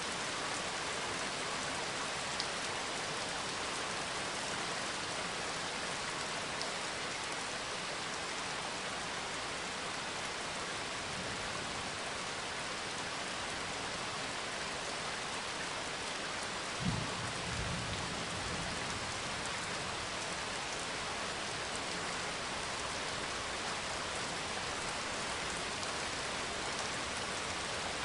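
Steady rain-like hiss, with a single soft low thump a little past the middle.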